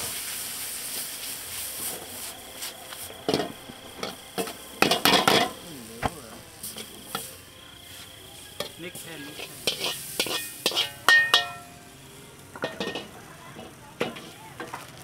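Street-food cooking: metal utensils clink, knock and scrape against pans and dishes in irregular strikes over a light sizzle of frying. A few clinks ring briefly, and the loudest come about five seconds in and again around eleven seconds.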